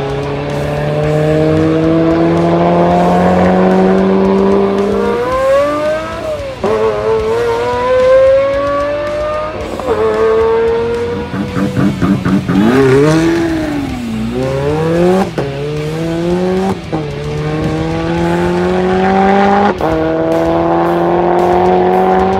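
Pagani Huayra's twin-turbo V12 accelerating hard, its note climbing through each gear and dropping sharply at about six quick upshifts. Around the middle the note falls away and rises again.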